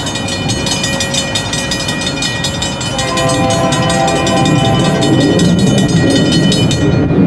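CSX AC44CW locomotive's Nathan K3LA air horn blowing a chord for the grade crossing; the chord changes notes about three seconds in and cuts off near the end. Beneath it the diesel locomotives rumble, growing louder from about five seconds as they approach working hard.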